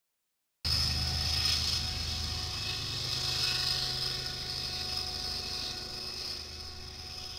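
BNSF diesel-electric locomotives rolling past: a low engine rumble with a steady high-pitched tone over it. The sound starts abruptly about half a second in.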